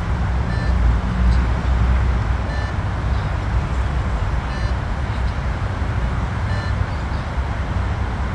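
Short electronic beeps, one every two seconds, pacing pull-ups in a pull-up beep test, over a steady low rumble.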